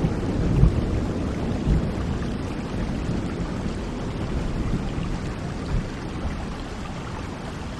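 Steady rain with a low thunder rumble that dies away over the first few seconds.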